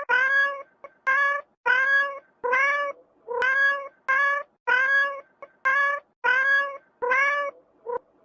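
A cat meowing over and over: about a dozen short, evenly spaced meows, each rising slightly in pitch.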